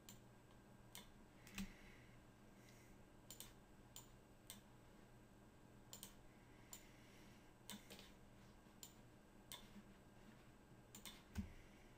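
Faint, irregular clicks of a computer mouse and keyboard, a dozen or so scattered through the stretch, one a little louder near the end, against near silence.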